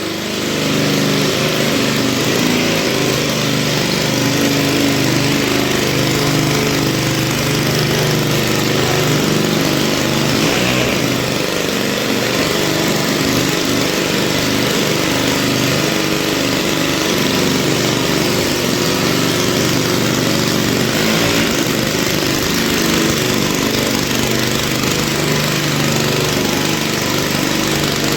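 Small 75cc petrol engine of a motorised wheelbarrow trolley running steadily.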